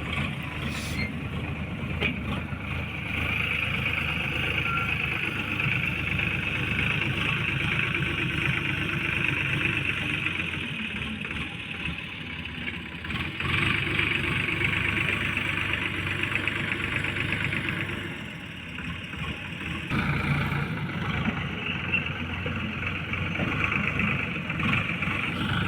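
Tractor engine running steadily, its loudness dipping briefly about three-quarters of the way through before picking up again.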